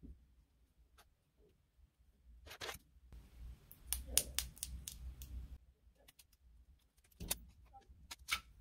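A clear nano gel tape pouch crackling and clicking under the fingers as it is squeezed and worked around a white plastic straw. There are scattered sharp clicks, with a dense run of crackles around the middle.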